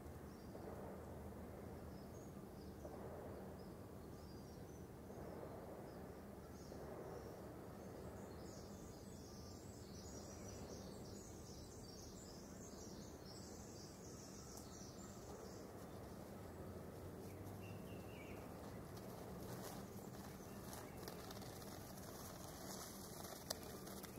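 Faint, steady running noise inside a moving streetcar, a low hum under an even rumble, with faint high chirping sounds between about eight and sixteen seconds in.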